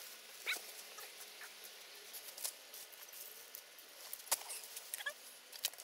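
Fir branches rustling and crackling as people push through a small conifer, then footsteps on frosty grass, with scattered sharp clicks.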